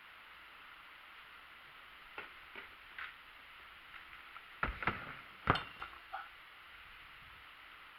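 BMX bike clattering and thudding on the ground during a trick: a few light clicks, then a cluster of knocks and thumps around the middle, the loudest about five and a half seconds in.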